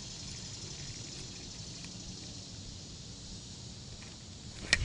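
Steady lakeside ambience: a high, even insect drone over a low rumble, with one sharp click just before the end.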